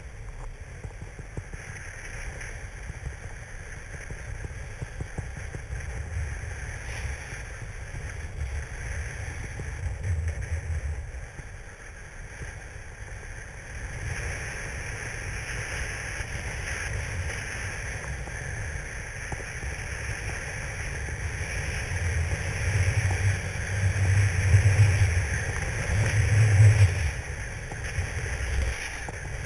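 Snowboard sliding down a groomed piste: a steady hiss of the board on the snow, with wind rumbling on the camera microphone. The wind rumble swells in stronger gusts in the last few seconds.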